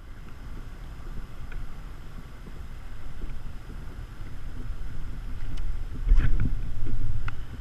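Wind rumbling on a GoPro camera's microphone out on a kayak, with a few light clicks and knocks. It grows louder about six seconds in.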